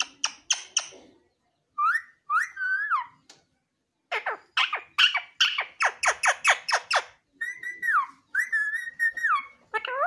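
Indian ringneck parakeet calling: a few clicks at the start, two short whistles, then a quick run of sharp calls at about four a second, and two longer level whistles near the end.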